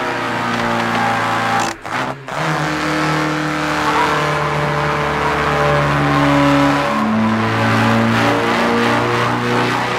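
Racing car engines running at speed, several steady engine notes changing pitch in steps, with a brief dropout about two seconds in.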